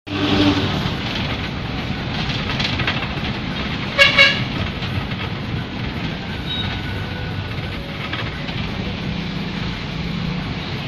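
Steady low vehicle engine rumble, with two short horn toots about four seconds in.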